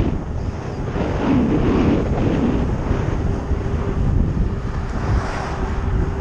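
Wind buffeting a helmet-mounted action camera's microphone on a fast bicycle descent at about 25 mph: a loud, steady rush of wind noise, heaviest in the low end.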